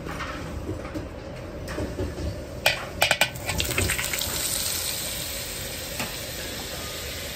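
Two blocks of butter hitting a hot wok: a burst of sharp spattering crackles about three seconds in, then a steady sizzle as the butter melts and foams, over a low steady rumble.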